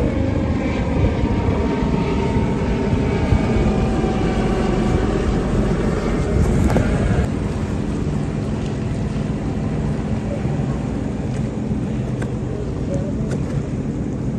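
Boat engine running close by, its pitch falling over the first several seconds, then settling into a steadier, slightly quieter drone.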